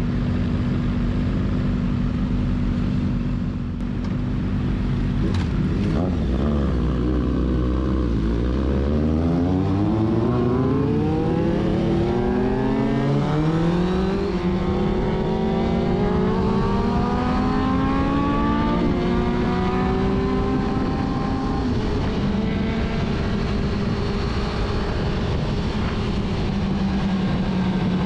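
Sport motorcycle engine easing off with its pitch falling, then accelerating through the gears. The pitch climbs in steps that drop back at each upshift, then holds at a steady cruise.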